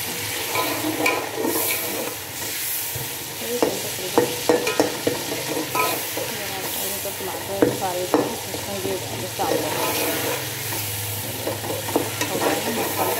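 A spoon stirring and scraping through a metal pot of tomato-and-vegetable masala that is frying and sizzling on a gas stove, with repeated clicks and scrapes of the spoon against the pot over a steady sizzle.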